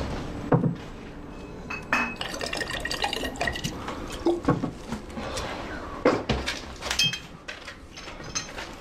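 Scattered clinks and knocks of a porcelain wine jug and crockery being handled, a few of them ringing briefly.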